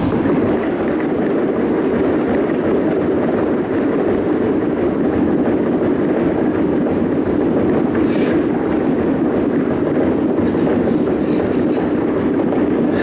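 Thick battle ropes whipped in rapid waves, slapping the hardwood floor in a fast, continuous stream of slaps.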